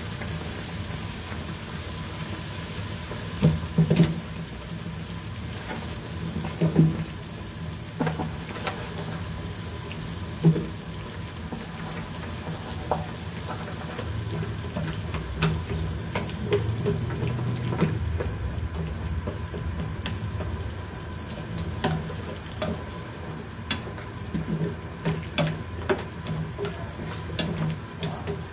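Pork lung and potato slices simmering in broth in a nonstick pan, a steady bubbling hiss, with scattered light knocks and clicks as wooden chopsticks stir and turn the pieces against the pan.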